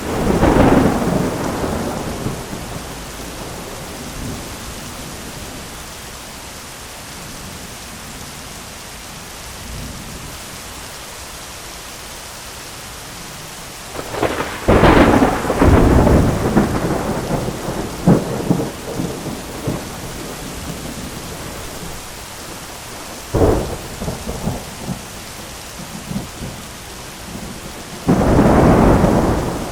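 Heavy rain falling steadily on an umbrella, with thunder: a loud clap at the start, a longer crackling rumble about halfway through, a single sharp crack a few seconds later, and another loud clap near the end.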